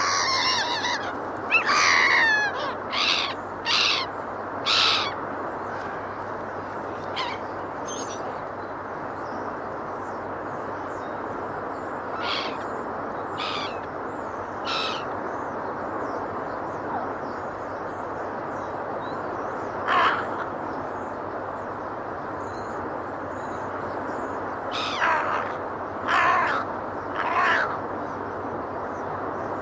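Gulls calling over a steady rushing background noise. Falling calls open it, followed by short harsh calls at irregular gaps, sparser through the middle and three close together near the end.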